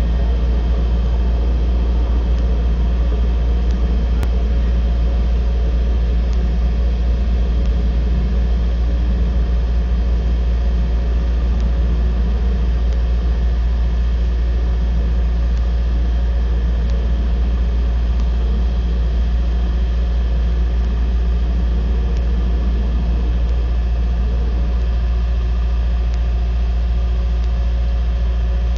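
An engine idling steadily, a loud, even low hum that does not change.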